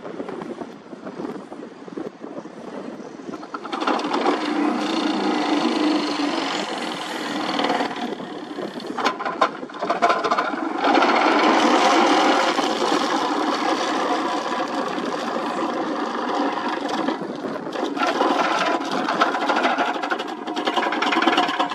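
Excavator-mounted vibratory pile hammer running, vibrating a steel sheet pile into the ground: a dense, steady mechanical buzz with many tones. It comes up about three and a half seconds in, eases briefly around nine seconds, then runs loud again.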